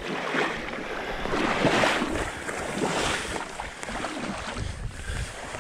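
Water sloshing and splashing in uneven surges around waders as a hunter wades through the river shallows to retrieve downed ducks.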